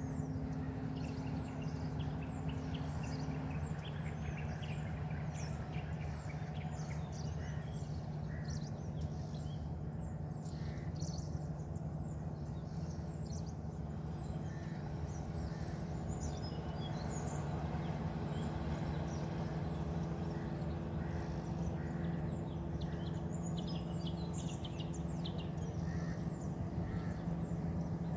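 Many birds chirping and calling, short high notes overlapping throughout, over a steady low hum.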